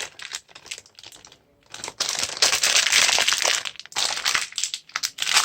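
Plastic Skittles wrapper crinkling as it is handled, in crackly bursts with a short pause about a second and a half in, loudest after about two seconds.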